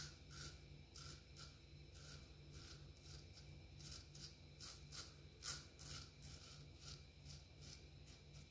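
Straight razor (a Palmera) scraping through lathered stubble in short, quick strokes, about two or three a second, faint and steady in rhythm.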